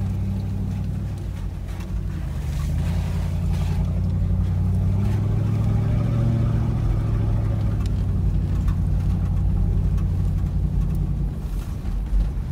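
Toyota Land Cruiser 100's V8 engine running under way, with tyre and road noise on a gravel track, heard from inside the cabin. It is a steady low drone that grows louder about two seconds in and then holds.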